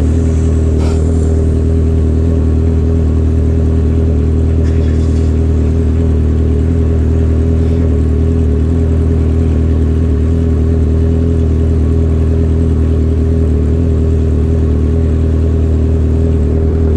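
Suzuki Bandit 650N's inline-four engine idling steadily, close to the microphone.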